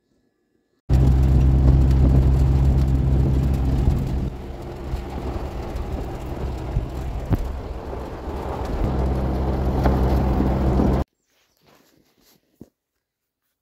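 A motor vehicle's engine running, a loud steady drone that eases off about three seconds in and builds again near nine seconds. It cuts in and cuts off suddenly.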